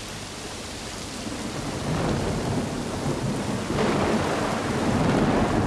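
Rain falling steadily with rolling thunder, the low rumble swelling about two seconds in and again near four seconds.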